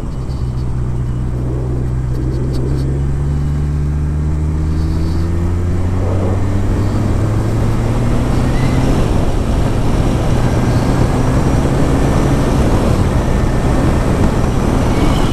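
Kawasaki ZX1000 (Ninja 1000) inline-four engine accelerating from the rider's seat. Its note climbs slowly, drops at a gear change about nine seconds in, then holds steady, with wind and road noise growing with speed.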